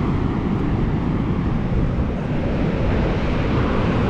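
Steady wind and ocean surf noise at the water's edge, buffeting the microphone and heavy in the low end.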